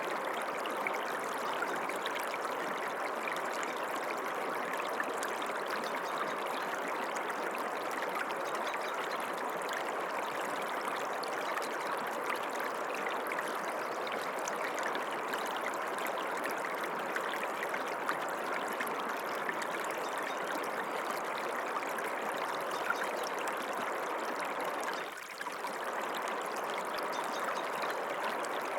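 Small stream of water running steadily over stones, a continuous rushing and trickling with one brief dip in level near the end.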